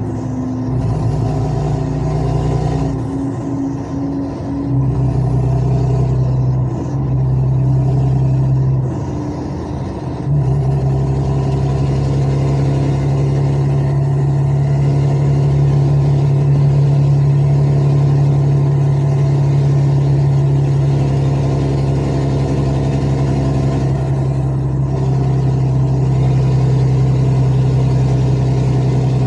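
Engine of the vehicle being driven, running under way at about 50 km/h. Its hum dips and picks up twice in the first ten seconds, then holds steady.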